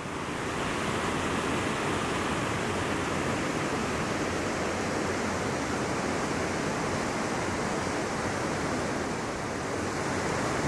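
Steady rush of a mountain stream's flowing water, an even noise that holds level throughout.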